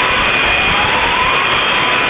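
Emergency siren wailing, its pitch slowly rising, over a loud steady din.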